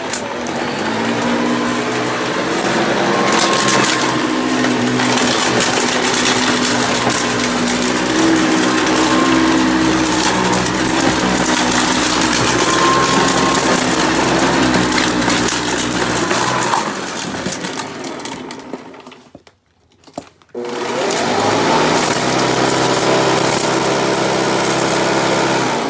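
Vintage Hoover Custom Convertible upright vacuum cleaner running loudly, with rapid crackling and rattling as debris is sucked through it. About two-thirds of the way through the motor spins down to a stop, then is switched back on and winds up to speed with a rising whine.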